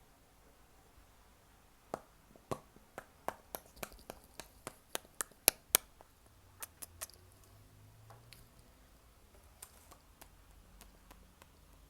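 A run of about sixteen sharp, close-miked ASMR clicks, uneven at roughly three or four a second, the loudest in the middle of the run; after it only a few faint ones.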